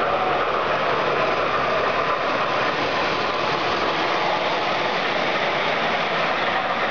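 O-gauge model train running, heard close up from a camera car riding on the track: a steady rolling rattle of metal wheels on three-rail track with the electric motor's hum, even throughout.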